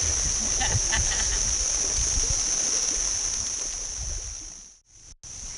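Outdoor river ambience: wind rumbling on the microphone over a steady high-pitched drone. It fades away about five seconds in.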